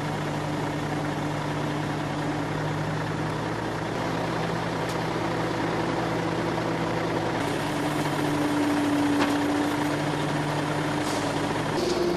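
Heavy diesel engine of a mobile crane running steadily as it lifts, its pitch shifting slightly a couple of times.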